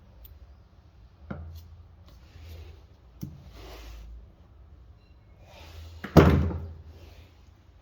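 A light knock, another about two seconds later, then a loud bang about six seconds in that rings on for a moment.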